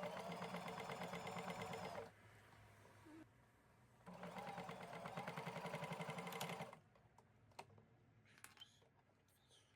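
Sewing machine stitching the denim waistband of jeans closed, in two short runs of fast, even needle strokes with a pause between. A few faint clicks follow near the end.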